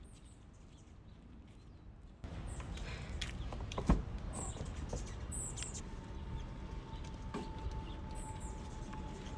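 A car door clunks open once, about four seconds in, over outdoor ambience with birds chirping now and then. A steady high tone sounds through the second half.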